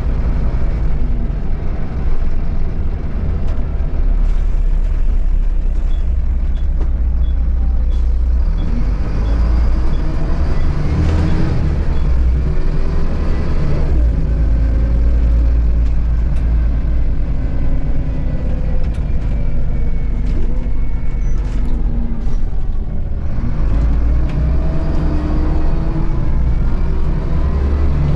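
Volvo B7RLE bus's rear-mounted diesel engine heard from inside the passenger cabin as the bus pulls away and drives, with a heavy low rumble and engine pitch rising and falling through the gear changes. A faint ticking about twice a second runs for a few seconds near the middle.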